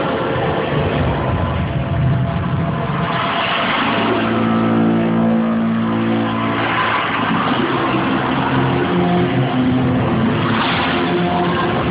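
Loud, weird electronic soundscape from a sound and light show: droning pitched tones that shift in pitch, with whooshing swells about three seconds in, near the middle and near the end.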